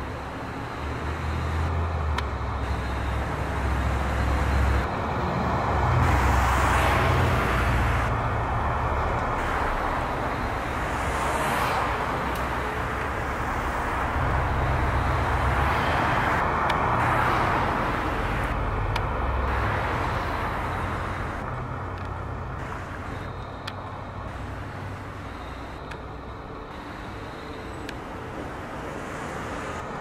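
Street traffic: cars and other vehicles passing with a low engine rumble, swelling louder about six seconds in and again around fifteen seconds in, then easing off.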